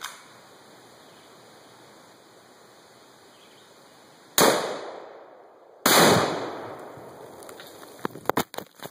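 Gunfire and the blast of a 2 lb exploding target: two loud bangs about a second and a half apart, the second with a longer rumbling tail. A few sharp ticks and clatters follow near the end as debris lands.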